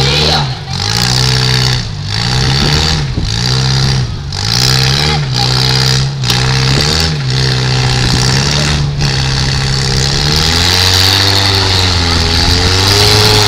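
Demolition derby car's engine revved hard over and over, rising and falling about once a second, then held at high revs with a slowly wavering pitch for the last few seconds.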